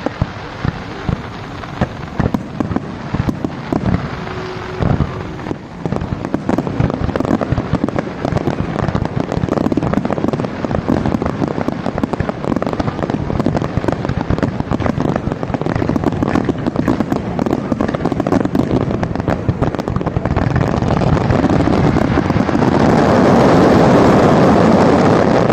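Fireworks going off: a rapid run of sharp bangs, then dense, continuous crackling that builds to its loudest near the end.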